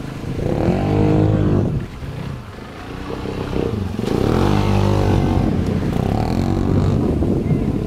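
Engine of an off-road vehicle with an extended muffler revving hard in three surges, about a second in, around four seconds in and near the end, with the engine dropping back between them, as the vehicle is ridden on a wheelie.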